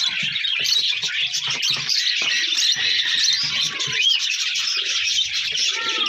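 Many birds chirping and twittering without a break, with a few short rising-and-falling calls, and low pigeon sounds now and then underneath.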